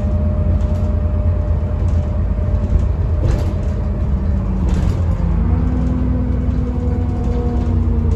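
Alexander Dennis Enviro400 double-decker bus driving, heard from inside the passenger saloon: a steady low engine and road rumble with a whine whose pitch shifts about five seconds in.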